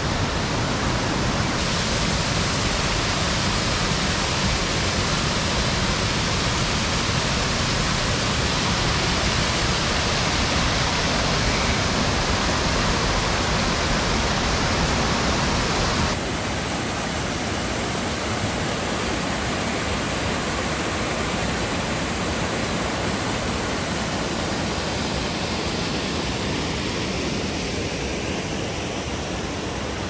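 A woodland stream rushing over rocky cascades and small waterfalls, a loud, steady rush of water. About halfway through it cuts to a slightly quieter stretch of the same falling water.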